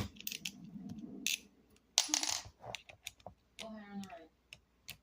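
Screws being worked out of a trimmer router's housing with a screwdriver: scattered metallic clicks and clinks, a short scrape about two seconds in and a brief squeak near four seconds.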